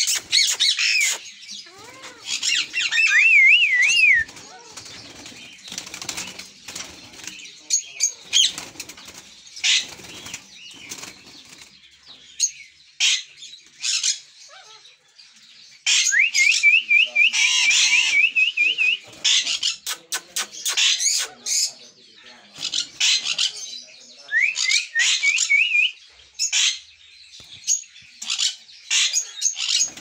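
A group of caged parrots, green parakeets and yellow-orange sun conures, calling with shrill squawks and chirps, some in quick wavering runs of notes, with wing flapping between the calls.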